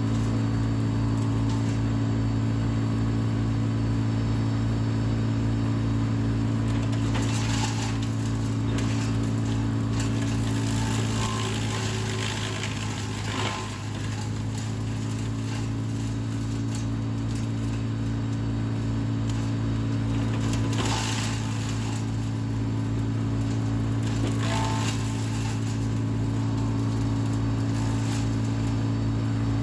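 Vermeer BC700XL wood chipper running steadily at high engine speed, with a low pulsing throb. Several brief bursts of noise, about a quarter, a third, two thirds and four fifths of the way through, are branches being fed through and chipped; the engine dips briefly partway through.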